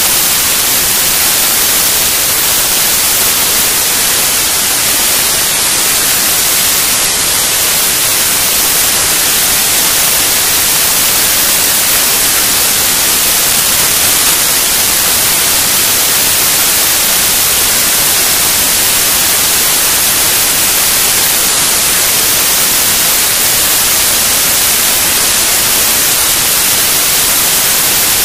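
Loud, steady hiss of static noise filling the audio track, with no music or voices standing out.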